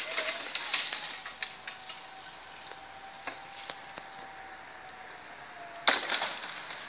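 Level-crossing barrier drive raising the half-barrier booms: a faint steady whine for about six seconds, with rattling noise as the booms start up and a loud clattering burst near the end as they reach the top and stop.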